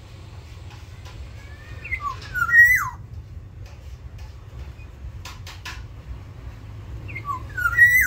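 Black-naped oriole giving its fluty whistled call twice, about five seconds apart. Each phrase is a few short sliding whistles ending in a louder note that rises and then drops.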